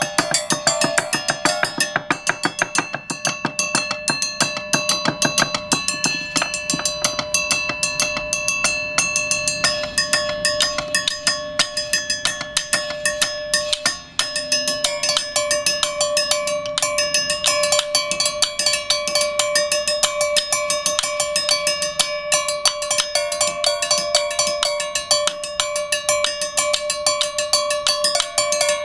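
Percussion on rows of grey blocks laid on trestle tables, struck rapidly with sticks and mallets by two players. A dense stream of strikes runs over several sustained ringing notes, and the set of notes shifts about a third and about halfway through.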